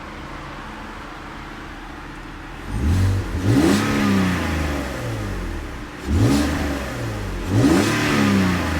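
2006 BMW 330ci ZHP's inline-six engine idling steadily, then revved three times about three, six and seven and a half seconds in, the pitch rising and falling back to idle after each blip. The exhaust note is prominent and throaty.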